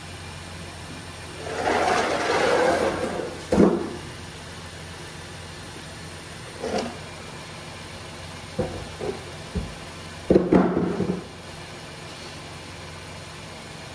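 Car ramps being handled on a garage floor: a long scrape about two seconds in, then a sharp knock, a few lighter clacks, and another scrape near the end. Under it all runs the steady low hum of a 2019 Honda Odyssey's V6 idling.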